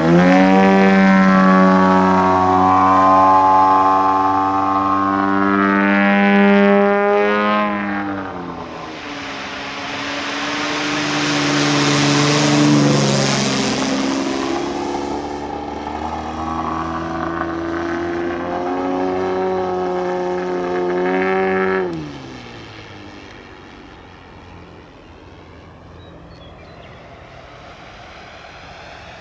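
Engine and propeller of an AJ Laser radio-controlled aerobatic airplane running at high power through manoeuvres, its note rising and falling. Around the middle a rushing hiss swells and fades. About three-quarters through, the engine note drops sharply and the sound carries on much quieter, as if throttled back.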